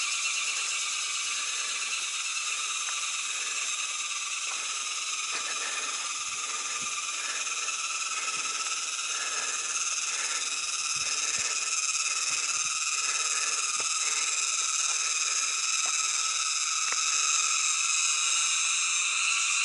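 Steady, dense chorus of tropical forest insects, a shrill multi-pitched drone that holds evenly and grows slightly louder near the end. A few faint low thumps come through around the middle.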